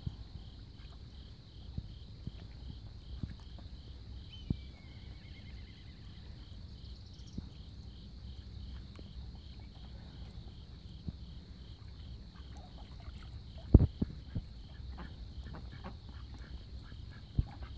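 High, evenly pulsed chirping, about two chirps a second, like a calling insect, going on steadily over a low outdoor rumble. Scattered knocks and taps, the loudest about 14 seconds in.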